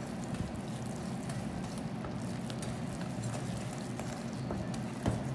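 Wire whisk beating thick cake batter in a stainless steel bowl: a rapid, steady clatter and scrape of wire against metal.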